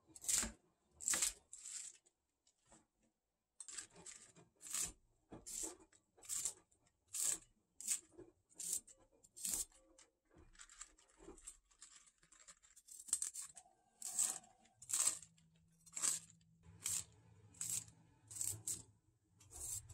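Bomdong (Korean spring cabbage) leaves being cut into pieces by hand: a series of crisp, crunchy snaps, roughly one a second, first with a kitchen knife against a wooden cutting board, then as leaves are cut or torn over a glass bowl.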